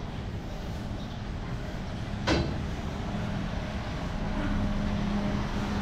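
A motor vehicle engine running in the street noise, its low hum growing louder over the last few seconds, with one sharp click a little over two seconds in.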